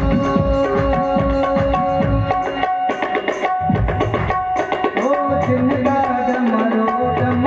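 Tabla playing fast strokes over held keyboard-like melodic tones in an instrumental passage, with a short break about three seconds in. Later the low drum's pitch glides.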